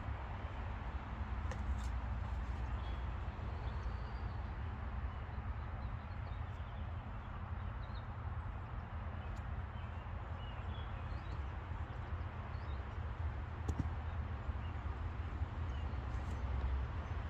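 Outdoor ambience: a steady low rumble with faint, scattered bird chirps and an occasional light knock.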